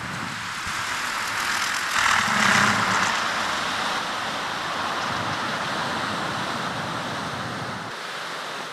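Steady rushing of gusty wind around a spinning small wind turbine, swelling about two seconds in, with a low rumble that drops away near the end.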